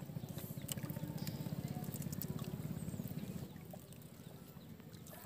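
Small boat engine running, a faint, low, even putter that fades away about three and a half seconds in.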